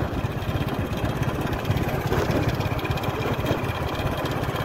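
A small vehicle engine running steadily at cruising speed, heard from on board, with a fast, even low pulse and a steady rushing noise over it.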